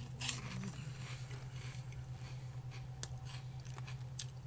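Faint chewing and mouth sounds from someone eating a crunchy corn-and-potato snack: a few soft clicks over a steady low hum.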